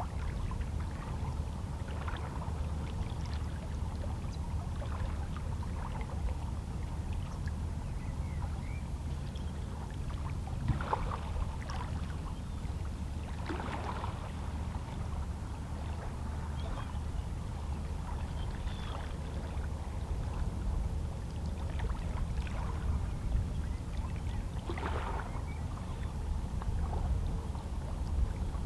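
Small, calm sea waves lapping and splashing against shoreline rocks over a steady low rumble of the sea, with a few louder splashes along the way.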